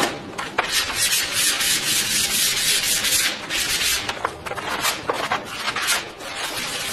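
Sanding on the car's bodywork: continuous rough abrasive rubbing with an uneven, scratchy rhythm, the kind of surface work done for rust removal and paint preparation.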